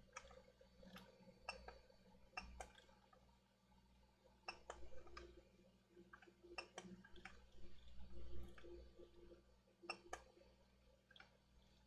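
Faint, irregular clicks and light taps of small hard parts and tools being handled on a desk, over a low hum.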